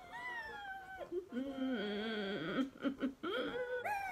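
A woman whimpering and moaning in pain through closed lips as a glued-down latex bald cap is pulled from her skin: a high falling whine, then a lower wavering moan, then another high whine near the end.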